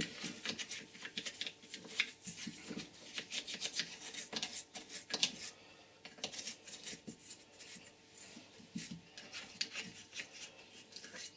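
Small brush scrubbing the inside of a Wolf air compressor's cylinder head, wet with Coca-Cola, to clean out the dirt inside: quick, irregular scratchy strokes with a couple of short pauses in the middle.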